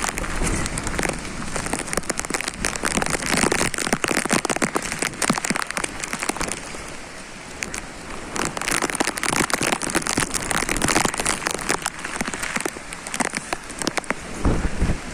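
Heavy monsoon downpour: a dense, steady hiss of rain with many drops pattering close by. Near the end a wind gust buffets the microphone.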